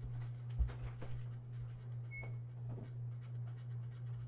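Steady low electrical hum with a few faint knocks and clicks, a dull thump under a second in, and a short high beep about two seconds in.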